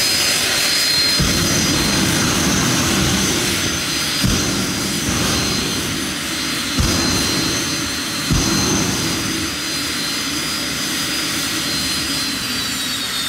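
Helicopter turbine engine in a Plymouth Voyager minivan running: a steady high whine over a rough low rumble that comes in about a second in, with three sharp thumps about four, seven and eight seconds in. The whine falls in pitch near the end.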